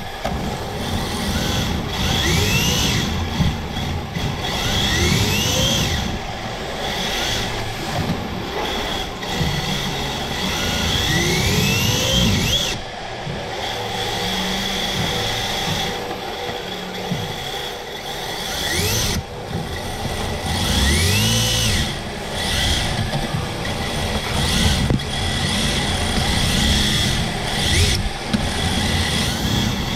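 Electric motor and drivetrain of a Redcat RDS RC drift car whining up in pitch again and again as the throttle is blipped, over steady running and tyre noise, heard from a camera mounted on the car.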